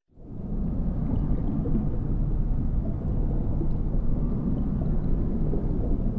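Steady low hum and gurgle of a reef aquarium's pumps and circulating water, fading in at the very start and then holding even.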